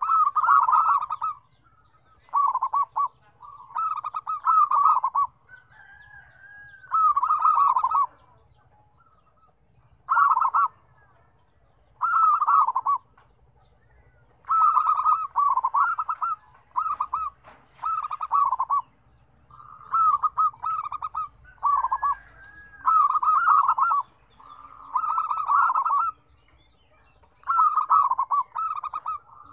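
Several zebra doves (perkutut) cooing: bursts of rapid, trilling staccato coos, each about a second long, following one another with short gaps. Twice, a higher rising-and-falling note leads into a burst.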